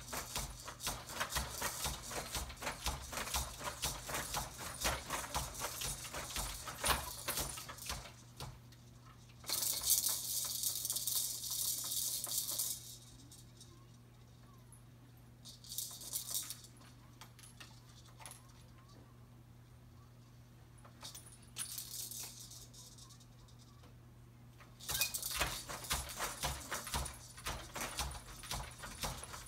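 Baby activity jumper rattling and clicking as the baby bounces in it and handles its plastic tray toys, in spells: busy at first, quiet in the middle, busy again near the end. A few seconds of hiss stand out about a third of the way in, over a steady low hum.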